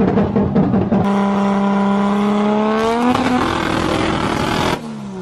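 Turbocharged car engine accelerating hard, its pitch climbing for about two seconds after a choppy start. Then a loud rushing hiss of a blow-off valve venting, which cuts off abruptly near the end.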